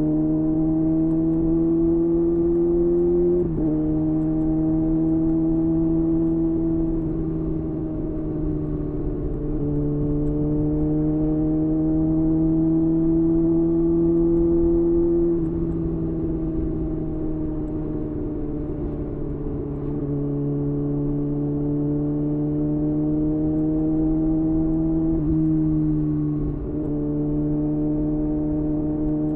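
Kawasaki ZX-6R inline-four running through a LeoVince LV10 carbon-fibre slip-on exhaust under way at moderate revs. The engine note creeps up in pitch and then steps down abruptly about six times, as at upshifts, and sinks slowly for a few seconds in the middle.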